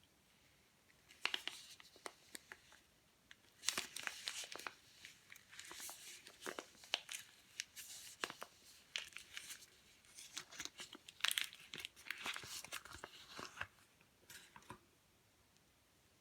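Knife cutting through a bar of dry soap: crisp crunching and crackling, starting about a second in and stopping shortly before the end.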